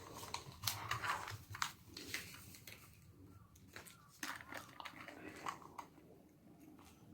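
Faint rustling and light clicks of an item being handled and adjusted by hand, busier in the first two seconds and then quieter.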